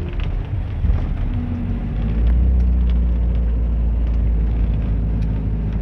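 Bus engine and road rumble heard from inside the moving bus with its windows open, a heavy low rumble that gets louder about two seconds in, with small rattles and clicks.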